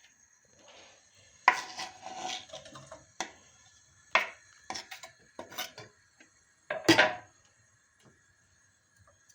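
Kitchen clatter: dishes, pots and utensils knocking and clinking in a string of separate knocks, with a longer rattle early and the loudest knock about seven seconds in.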